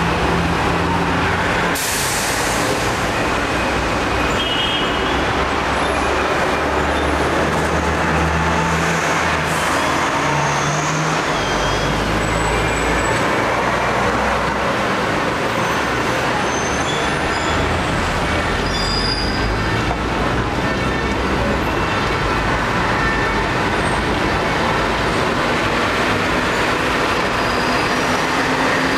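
Street traffic on a Hong Kong Island tram route, with double-deck trams and buses: a steady rumble and rattle of vehicles running. A short hiss sounds about two seconds in and again near ten seconds.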